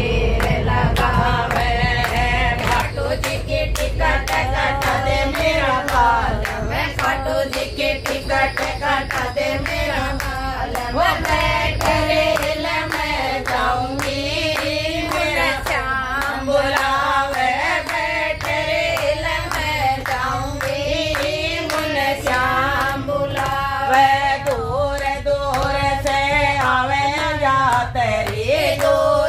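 Several voices singing a song together, with hand clapping keeping a steady beat throughout.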